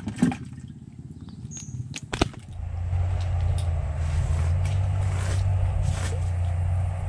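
A few sharp clicks and knocks as the catch and tackle are handled, then about two and a half seconds in a steady low engine drone sets in and holds.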